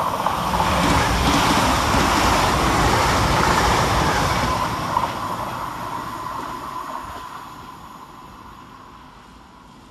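Hitachi Class 802 bi-mode train passing through the station at speed without stopping: a rushing of wheels and air that is loudest a second or so in, then fades away steadily as the train recedes, with a steady whine underneath and one short click about halfway through.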